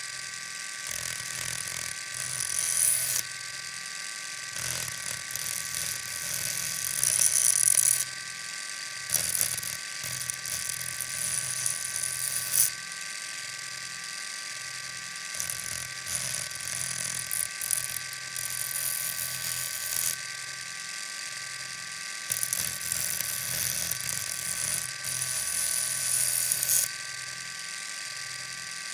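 Knife blade being ground on a sharpening wheel driven by an electric motor: a steady motor whine underneath, with repeated hissing grinding passes of a few seconds each as the blade is drawn across the wheel.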